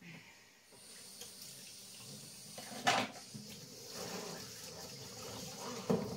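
Vinegar stock heating in a lidded pot on an induction hob, a steady hiss growing slowly louder as it nears a simmer. A faint high whine sounds for the first few seconds, and two short knocks come about three seconds in and near the end.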